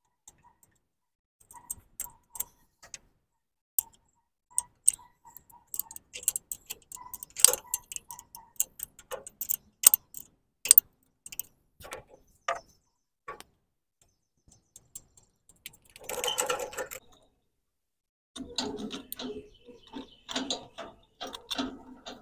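Ratchet wrench clicking in short runs as it loosens the carburetor mounting nuts on a Farmall Cub engine. It is followed by a brief rustle and then metallic scraping and clinks as the carburetor is worked free.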